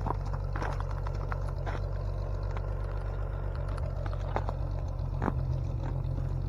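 Farmall 560 tractor's gasoline six-cylinder engine running steadily, with scattered clanks and rattles over it.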